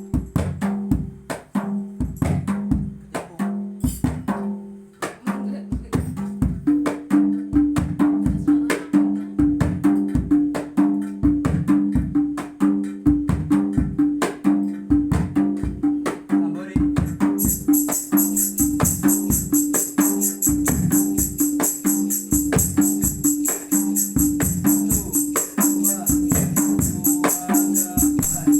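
Hadroh percussion ensemble playing a fast, steady rhythm on rebana frame drums and a deep-toned bass drum. About two-thirds of the way in, a jingle tambourine joins with a continuous shimmering rattle over the beat.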